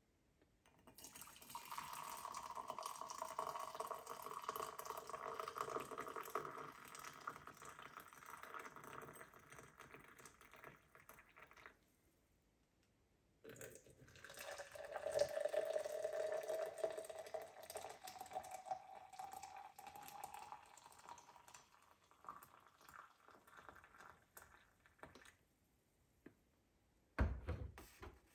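Hot coffee pouring from a steel camp percolator into an insulated tumbler in two long streams, the second rising in pitch as the tumbler fills. Near the end there is a single knock as the pot is set back down on the camp stove.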